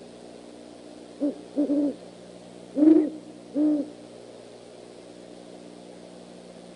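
Great horned owl hooting: a run of about five low hoots between one and four seconds in, the one about three seconds in the loudest.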